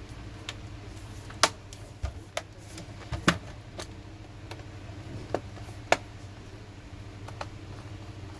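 Scattered sharp clicks and taps of hard plastic and small metal parts being handled on a laptop under repair, about seven in all, over a steady low hum.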